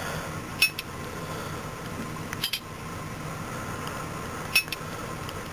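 Three short, sharp clicks about two seconds apart, from the buttons of a Sidekick LX phone being pressed to open a message, over a steady low hum.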